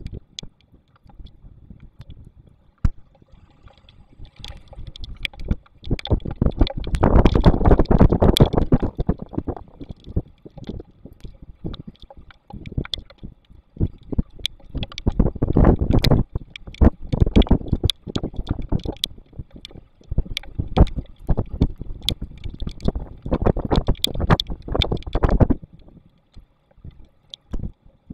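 Storm wind buffeting the nest-box camera's microphone in gusts that swell and fade, strongest about a quarter of the way in and again near the end, with scattered sharp ticks of rain striking the camera housing.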